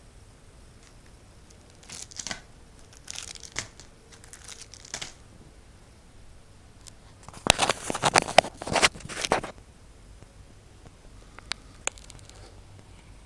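Thin clear plastic packaging bags crinkling and tearing as they are handled, in several short bouts, the loudest and longest a little past the middle. A couple of sharp clicks near the end.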